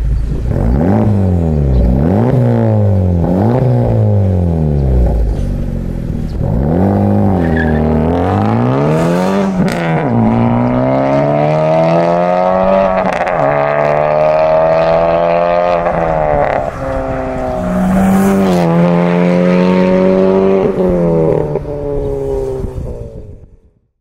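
Honda FL5 Civic Type R's turbocharged 2.0-litre four-cylinder through a catless downpipe and valved cat-back exhaust with the valves open. It is blipped from idle several times, then accelerates hard through the gears, pitch rising in each gear and dropping at each upshift, and fades out near the end.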